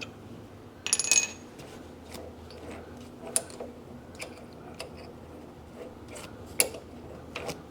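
Metal clinks and rattles of a drill bit being fitted into a drill chuck and the chuck tightened, with a loud cluster of clinks about a second in and single sharp clicks later, over a faint steady low hum.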